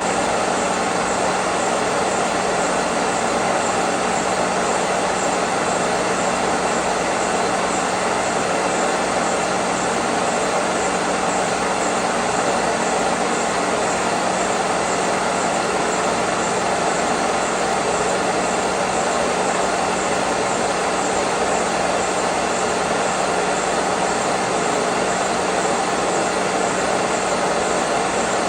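Kearney & Trecker horizontal milling machine running steadily, its 3-inch boring head turning on the horizontal spindle to bore the counterbore to size. It is a continuous machine hum with a steady low tone and an even hiss over it.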